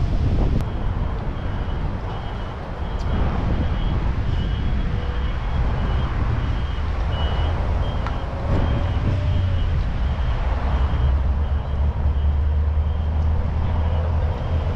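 Steady low engine rumble, with a faint high tone pulsing on and off over it through the middle.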